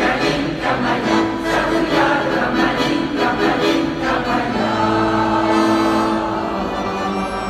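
Mixed amateur choir of men and women singing in unison and harmony, ending on a long held chord in the second half.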